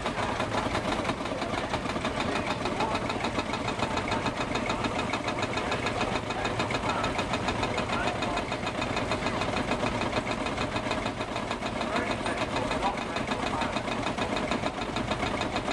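Single-cylinder two-stroke diesel engines of vintage Field Marshall tractors chugging steadily with an even knocking beat as the tractors drive slowly past.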